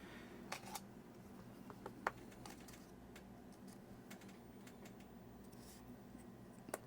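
Faint, scattered small clicks and taps from handling a watch and its strap parts, a few in the first two seconds and one near the end, over quiet room tone.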